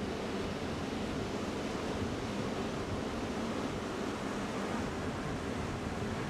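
Ocean surf washing steadily onto the beach, a continuous rushing wash with no single breaking crash standing out.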